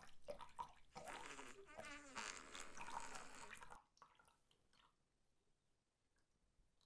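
A long, buzzy fart with a wavering, rippling pitch lasting about four seconds, then it stops and all goes near silent.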